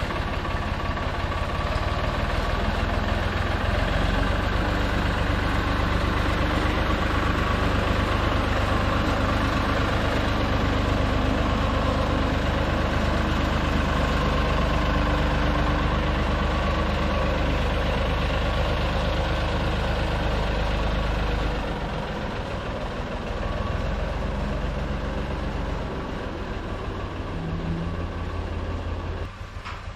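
Tractor engine running steadily, with a low, heavy note; it eases down about three-quarters of the way through and drops again just before the end.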